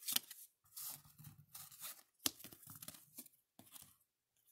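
Signed trading cards handled at a desk: a string of short, irregular scraping and rustling noises as the cards are slid across each other, put down and the next one picked up.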